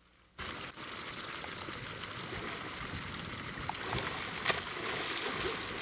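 Water splashing and churning as a capybara and a man thrash about together in a pond. It starts suddenly about half a second in and keeps going steadily.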